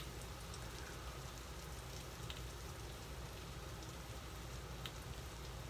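Salted mackerel frying in a pan: a quiet, steady sizzle with a couple of small spits.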